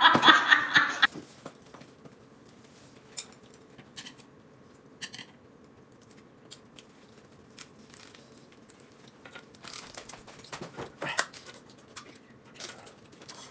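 A laugh trailing off in the first second, then quiet eating sounds: scattered light clicks, and from about ten seconds in the crackle and rustle of crisp lettuce leaves being handled and crunched.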